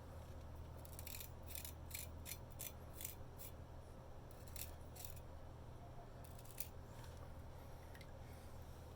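Antique C.Mon straight razor shaving stubble: a quick run of short, faint scraping strokes, then a few more spaced out, over a low steady hum.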